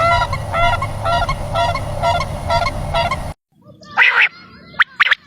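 A bird calling over and over, about two short pitched calls a second, over a steady low hum. About three seconds in the sound cuts off suddenly, and a quieter passage follows with one harsher call and then two short sharp calls.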